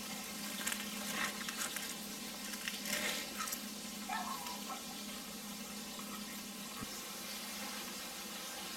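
Meat frying in a pan with a steady sizzle. A few light taps and scrapes of a knife and fork on a plastic cutting board come in the first few seconds.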